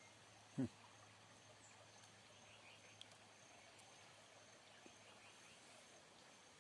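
Near silence: faint riverside ambience with a thin, steady high insect drone, broken once about half a second in by a brief sound that falls in pitch.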